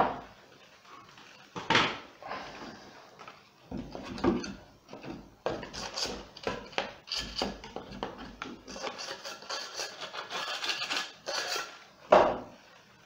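Small spatula scraping propolis and wax residue off a wooden beehive frame: a run of quick rasping strokes through the middle, with a few sharp knocks as the frame is handled.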